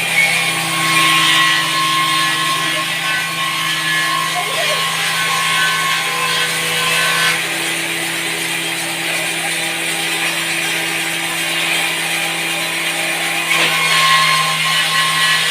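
Electric table saw running steadily, its tone shifting about seven seconds in and again near the end.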